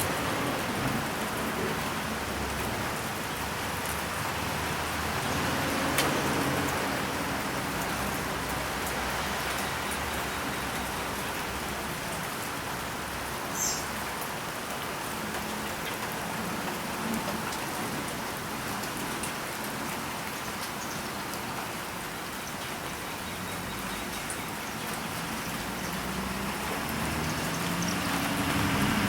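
Steady rain falling during a thunderstorm, with one sharp tick about six seconds in.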